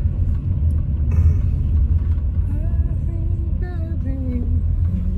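Steady low rumble of road and engine noise inside a car's cabin as it drives slowly. From about halfway in, someone hums a wavering tune over it.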